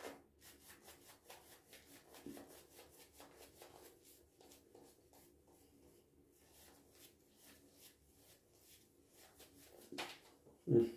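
Mühle Rytmo synthetic-fibre shaving brush being worked over the face, a run of quick, soft, wet brushing strokes in a lather that holds a touch too much water. A short, louder sound comes near the end.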